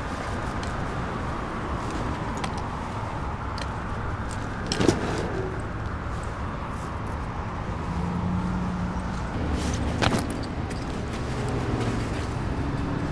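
Steady city street traffic noise, cars going by, with two sharp knocks about five seconds apart, near the middle and two-thirds of the way in.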